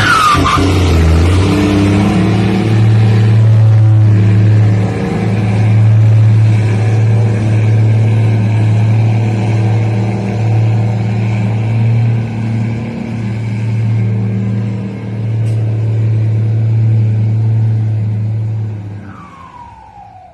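Bus diesel engine with a straight-through exhaust rumbling, a loud, steady deep drone that fades out near the end, where a short falling whine is heard.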